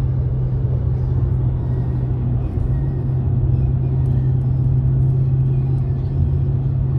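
Steady low drone of a car at motorway speed, heard from inside the cabin: engine and tyre noise holding one even hum.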